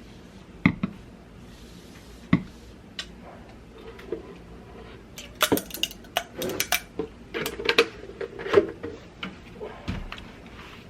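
Dishes and cutlery being handled: scattered light clinks and knocks, a few at first, then a busy run of them in the middle.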